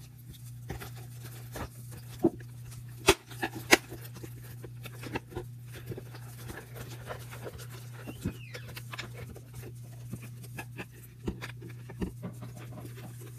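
Blue glue slime being worked in a clear plastic bowl as borax activator is mixed in: irregular wet squelches and sharp clicks of the plastic bowl, the loudest pair about three to four seconds in. A steady low hum runs underneath.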